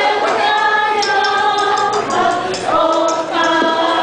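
A group of women singing together in chorus, holding long notes that change about once a second.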